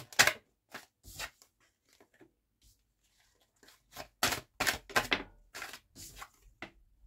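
Tarot cards being shuffled by hand: a few crisp card snaps and slaps, a pause, then a quicker run of snaps and flicks from about four seconds in.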